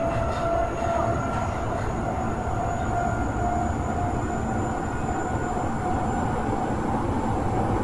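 Osaka Metro 23 series subway car, refurbished with a Hitachi IGBT inverter, running through a tunnel and heard from inside the car. A steady rumble of wheels on rail lies under steady whining tones.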